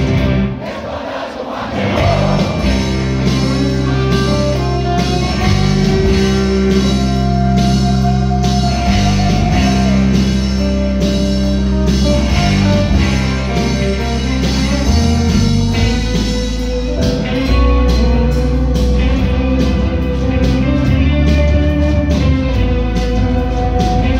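Live rock band playing electric guitars, bass and drums, with singing, heard from the audience in a theatre hall. The band drops back briefly about a second in, then comes in full again.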